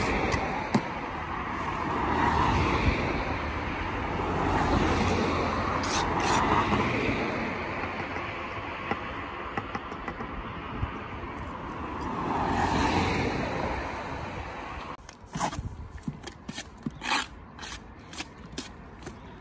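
Cars passing on the road, each swelling and fading, several times over. About three-quarters of the way in come a run of sharp knocks and scrapes: a brick trowel chipping old mortar off a brick.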